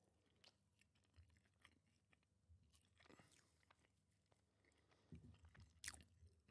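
Near silence, with faint chewing and small mouth clicks close to the microphone, a slightly louder click near the end.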